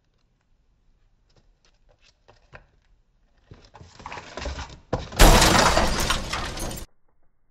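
Glass breaking and shattering, most likely a sound effect. A few faint ticks and a building rush lead into a loud crash about five seconds in, which cuts off suddenly under two seconds later.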